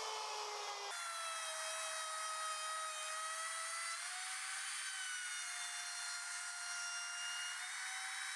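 Plunge router running with a top-bearing pattern bit, routing a shallow first pass of a dado in plywood as the bearing rides along a jig. A steady high motor whine that steps up in pitch about a second in and wavers slightly as the bit cuts.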